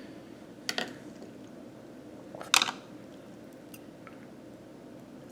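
Small sharp clicks and taps from a screwdriver and a tiny screw being worked into a laptop drive's mounting hole: one click about a second in, a louder double click about two and a half seconds in, and a couple of faint ticks after.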